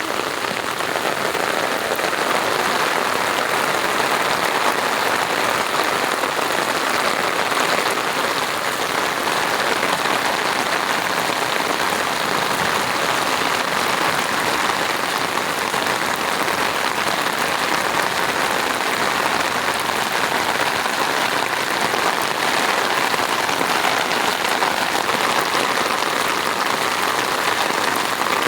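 Rain falling steadily: a dense, even hiss of many drops.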